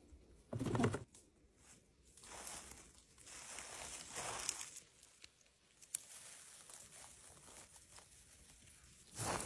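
Mushroom-picking handling noises: a thump about half a second in as a handful of chanterelles lands in a plastic basket, then intermittent soft rustling of moss, lichen and forest litter under the hand, with one sharp click near the middle.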